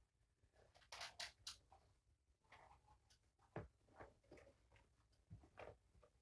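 Faint clicks and rustles of a plastic oral syringe and small medicine bottle being handled, a few scattered small sounds with a quick group of three about a second in.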